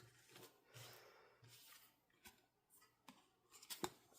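Near silence with faint handling of photocards: soft rustling and a few light clicks, the sharpest a little before the end.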